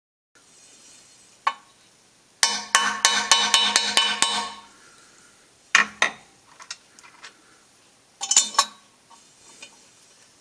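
Metal tools and parts being handled at a milling machine: a quick run of about ten ringing metal taps lasting about two seconds, then a couple of single clinks and a short rattle.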